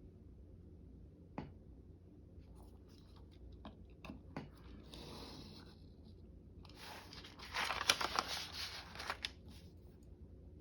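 Paper being handled at a craft table: a single tap, scattered light clicks, then a louder crackling stretch of paper rustling and tearing for a few seconds before it fades near the end.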